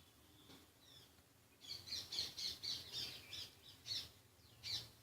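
Small birds chirping in quick, repeated high calls that start about one and a half seconds in, several a second, many of them sweeping down in pitch.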